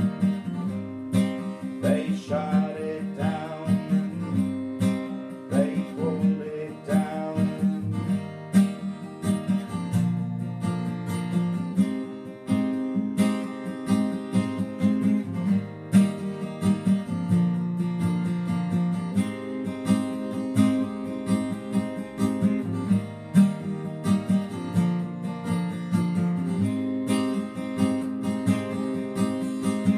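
Acoustic guitar strumming chords, the chord changing every couple of seconds.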